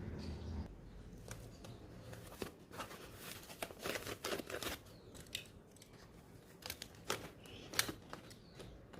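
Scissors snipping through material in a series of irregular short cuts, with some crinkling of the material being handled.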